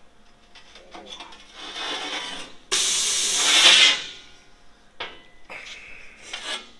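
A cut steel sheet being dragged and lifted off the plasma table's metal slats: scraping and rubbing that builds, then a loud rushing hiss for about a second near the middle, followed by a few clanks and a faint wavering ring from the sheet metal.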